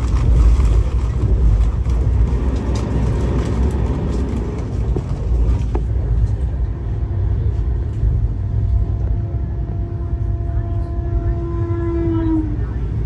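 Rumble and clatter of an Indian Railways Shatabdi Express coach running at speed, heard from inside the coach. From about seven seconds in, a train horn sounds as one steady note for about five seconds, dropping slightly in pitch just before it cuts off.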